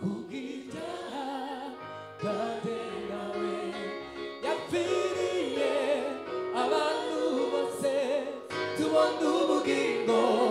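Gospel worship music: singing over held chords that change about every two seconds.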